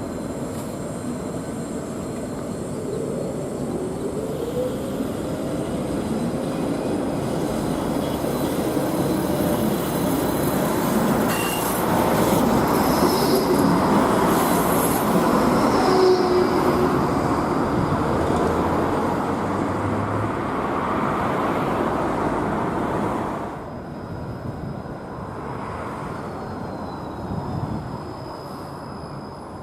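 Trams running on street track, a PCC car and five-section Ermine and Albatross low-floor trams, with steel wheels rumbling on the rails and thin high flange squeals. The noise swells as the trams pass and drops off sharply about three-quarters of the way through.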